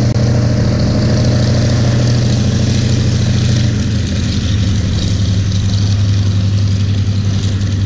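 A propeller aircraft's piston engine running loudly close by, a steady drone whose pitch drops a little about halfway through.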